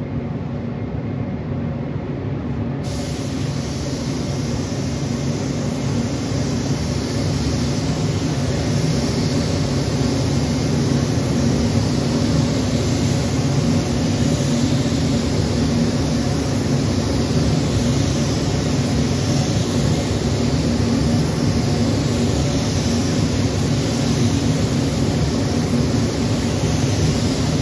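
Compressed-air spray gun hissing steadily as it sprays 2K primer, the hiss starting about three seconds in when the trigger is pulled, over a steady low rumble of the booth's air-handling and heating.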